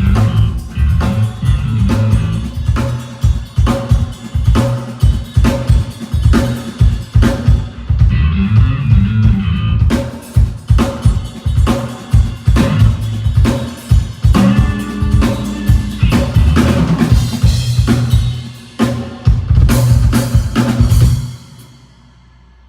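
Drum kit played for a sound check: bass drum and snare in a steady beat with fills, stopping about a second before the end.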